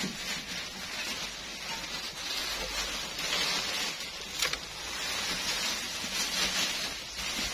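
Crackling rustle of a garment being handled and unfolded, swelling and easing, with one sharp click about four and a half seconds in.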